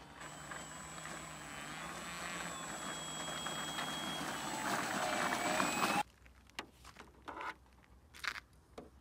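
Brushless electric motor and propeller of a 3D-printed RC Cessna 152 taxiing on asphalt, a whirring whine that grows steadily louder as the plane comes closer, its pitch shifting a little. It cuts off abruptly about six seconds in, leaving a few faint clicks.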